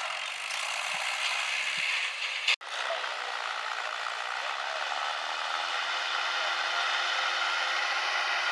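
Tractor diesel engine running steadily under load. The sound breaks off for an instant about two and a half seconds in, then carries on.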